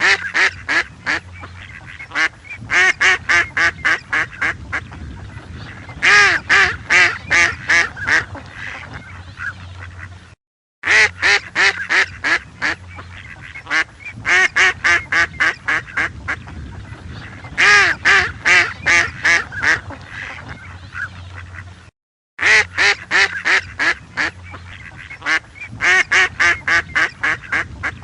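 Ducks quacking in quick runs of calls, several a second, with short pauses between runs. The sound cuts out completely for a moment twice.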